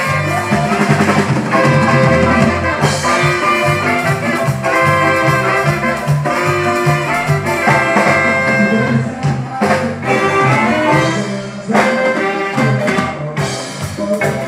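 Chiapas-style marimba band playing live: a saxophone section over marimba, congas and drum kit, in a lively, steady dance rhythm.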